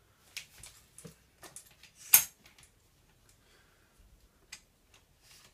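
Scattered light clicks and knocks from a scooter being handled, with one louder sharp click a little over two seconds in.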